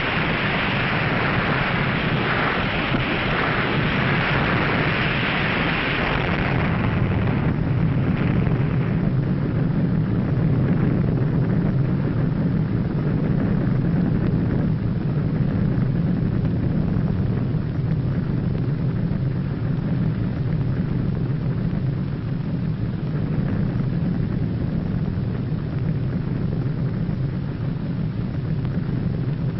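Underwater nuclear bomb explosion sound effect just after the blast: a loud rushing rumble with a hiss on top that dies away about six or seven seconds in, leaving a steady deep rumble.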